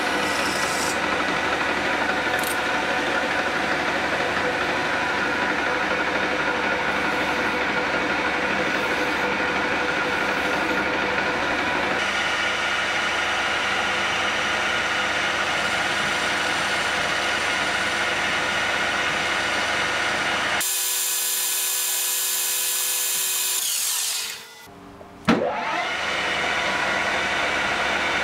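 Metal-turning lathe running steadily while parting off a workpiece with a newly fitted parting-tool tip, a continuous machining sound with a steady whine in it. About three-quarters of the way through the sound thins and drops away briefly, then a single sharp click, and the steady running resumes.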